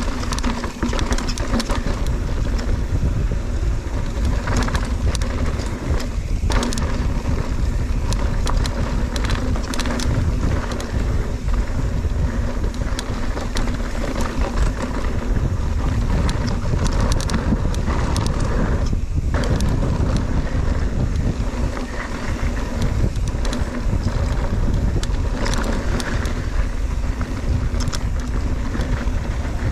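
Wind buffeting a ride-mounted camera's microphone at speed, with a heavy low rumble and scattered clatter and knocks from riding over rough trail.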